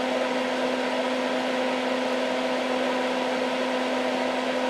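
Hakko soldering smoke absorber's fan running: a steady hum over an even rush of air.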